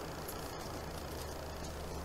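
Steady low hum under a faint hiss, unchanging throughout.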